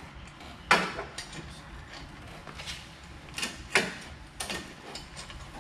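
A few sharp knocks and clanks from exhaust parts and hand tools being handled and fitted under the car. The loudest comes about a second in, and a close pair follows near the middle.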